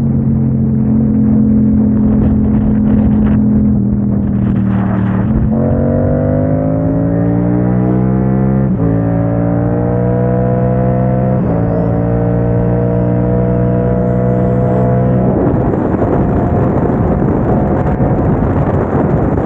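Yamaha motorcycle engine under way: it holds a steady note, then revs climb about five seconds in and drop sharply at a gear change near nine seconds, climb again and drop at another shift about a second and a half later. From about fifteen seconds in, wind rushing over the microphone takes over.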